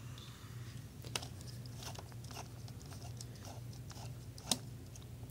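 A small Phillips screwdriver turning out tiny screws in a Lenovo G710 laptop's hinge area: faint scattered clicks and scrapes, with a sharper click about a second in and the loudest about four and a half seconds in. A steady low hum runs underneath.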